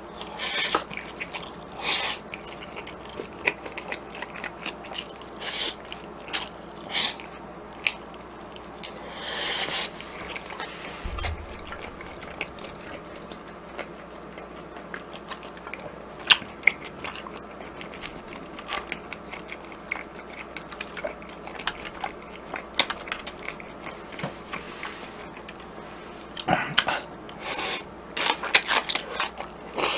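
Close-miked eating of jajangmyeon: repeated short slurps of the noodles and chewing, coming every few seconds and more often near the end.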